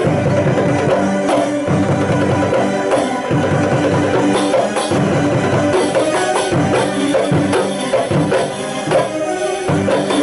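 Belly-dance music from a live band: hand drums beat a steady rhythm with jingling percussion over a sustained melody.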